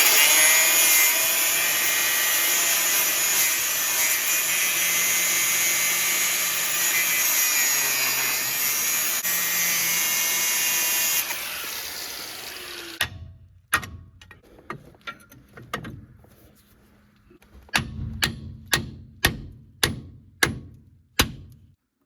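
An angle grinder running under load, cutting metal with a steady whine and hiss, then spinning down about eleven seconds in. A series of sharp metallic knocks follows, coming about twice a second near the end.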